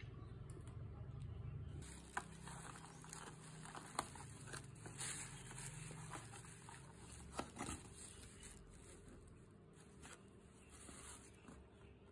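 Faint handling of a cardboard takeaway box over a plastic carrier bag: soft rustling with a few scattered small clicks and taps as the box is held and opened.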